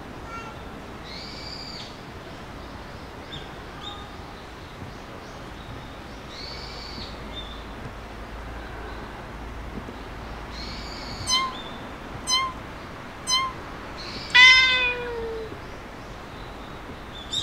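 A cat meowing: three short mews about a second apart, then a louder, longer meow that falls in pitch. Faint high calls sound in the background.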